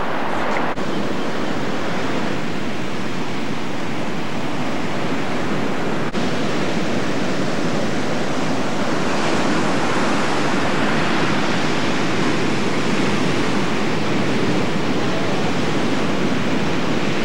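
Ocean surf washing steadily, a continuous rush of breaking waves, cut twice by brief dropouts, about a second in and about six seconds in.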